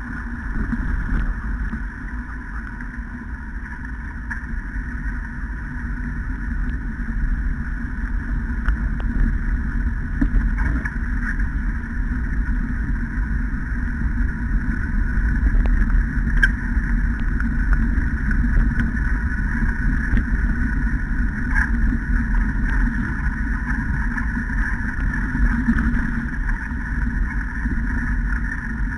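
Steady rumble and rushing noise of a dog-pulled training rig rolling fast along a wet, puddled forest track, with scattered small clicks.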